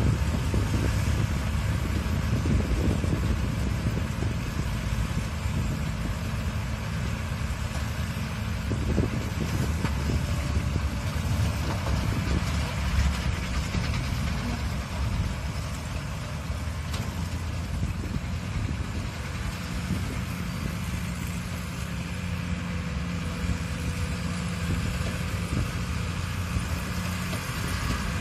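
New Holland 8160 tractor's diesel engine running steadily as it pulls a Krone Comprima round baler baling silage.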